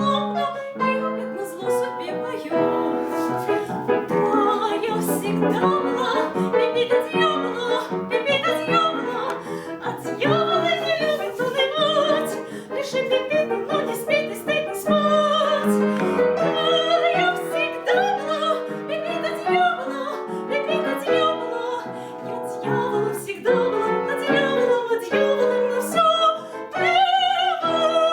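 Female classical voice singing an operetta song with wide vibrato, accompanied by piano.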